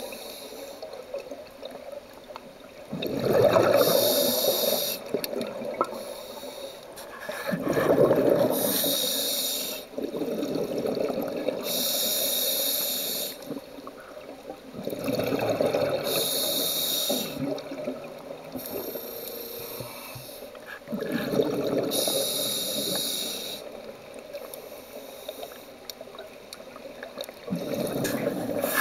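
Scuba diver breathing through a regulator: a hissing breath and a gush of exhaust bubbles, repeating about five times, roughly one breath every six seconds.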